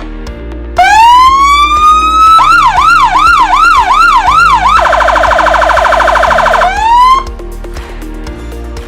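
Senken ELS205 200-watt electronic siren cycling through its tones. A rising wail starts about a second in. It changes to a yelp sweeping up and down about two and a half times a second, then to a much faster warble, and ends with a short rising tone that cuts off about seven seconds in.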